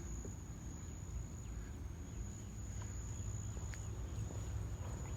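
Insects trilling outdoors: one steady, unbroken high-pitched tone, with a low rumble underneath.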